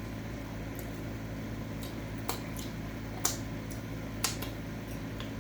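Room air-conditioning fan running with a steady hum, with a few brief clicks about two, three and four seconds in.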